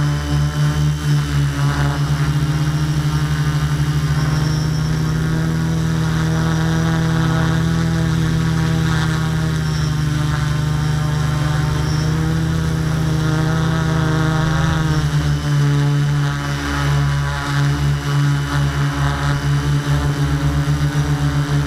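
Multirotor drone's electric motors and propellers humming steadily while hovering, heard close up from the camera mounted on the drone. The hum pulses rapidly near the start and again from about two-thirds of the way in, and is smoother in between.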